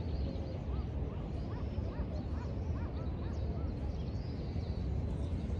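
Birds giving a run of short, repeated calls over a steady low outdoor rumble.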